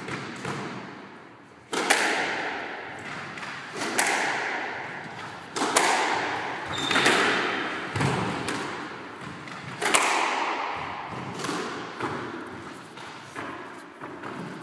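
Squash rally: the ball cracks off rackets and the court walls about every two seconds, each hit ringing out in the court's echo.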